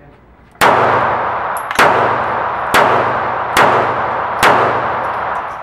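Five shots from a Taurus PT738 TCP .380 ACP pocket pistol, fired about a second apart, each ringing out in the long echo of an indoor range.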